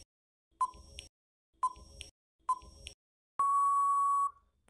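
Quiz countdown-timer sound effect: short clock-like ticks about a second apart, then a single steady beep about a second long marking time-out.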